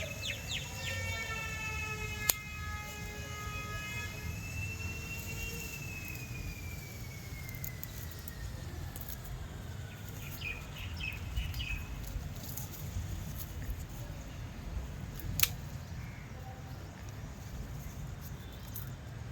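A distant siren-like wail: a steady pitched tone for a few seconds that rises briefly, then slides slowly down in pitch and fades. It sits over a low rumble, with a few bird chirps and a couple of sharp clicks later.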